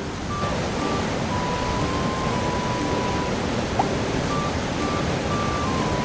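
Mountain stream rapids rushing steadily. Soft background music of long held notes plays faintly over the water.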